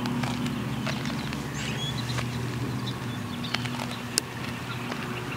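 Quiet outdoor ambience: a low steady hum, with a few faint bird chirps and one sharp click about four seconds in.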